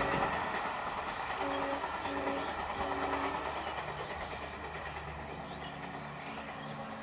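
Passenger train hauled by a WDM-3A Alco diesel locomotive pulling away, its running noise steadily fading. A train horn gives three short toots between about one and a half and three and a half seconds in.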